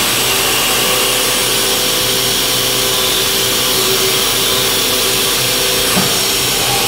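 1995 Haas VF-3 CNC mill's spindle driving an end mill in a slow plunge cut into a soft-jaw block: a steady machine whine under the loud, even hiss of the compressed-air coolant mister. The sound changes briefly about six seconds in as the tool lifts out of the cut.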